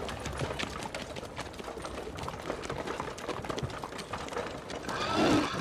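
Scattered soft clicks and rustling, like footsteps and horse hooves on paving, with a louder sound swelling up near the end.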